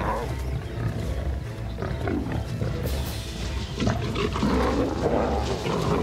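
Several African lions snarling and growling in a fight, in repeated rough bursts, over a low music score.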